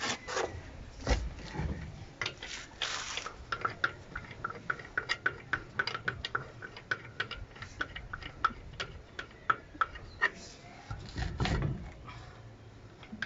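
Lug nuts being threaded onto a truck's rear wheel studs and run down with a hand wrench: a run of quick metallic clicks, about five a second, through the middle, with a few heavier knocks near the start and near the end.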